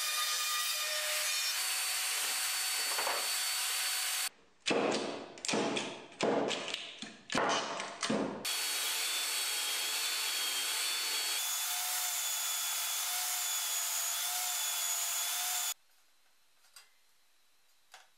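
Plunge router running as it cuts a circular groove in plywood. Then comes a series of about five short, loud power-tool bursts. After that an oscillating spindle sander runs steadily with a wavering whine while a plywood ring is sanded against its drum. The machine noise stops suddenly about 16 s in, leaving only a few faint handling clicks.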